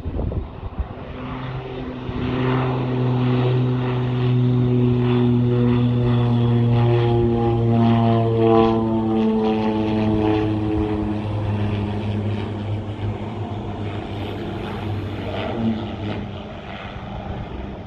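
Propeller airplane going past on its landing approach, its engine and propeller hum swelling to its loudest about halfway through and sinking slightly in pitch as it passes. Strong gusting wind buffets the microphone throughout.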